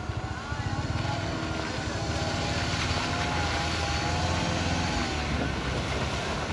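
Tata Safari Storme's diesel engine running under load in a steady drone as the two-wheel-drive SUV churns through mud, its wheels throwing up muddy water.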